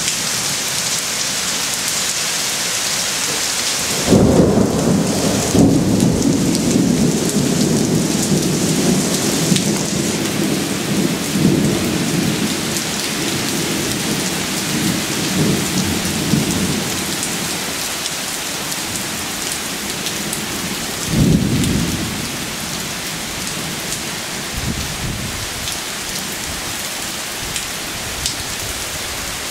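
Heavy rain falling steadily. About four seconds in, a sudden clap of thunder breaks and rumbles on for over ten seconds, dying away, with a shorter rumble of thunder about two-thirds of the way through and a fainter one soon after.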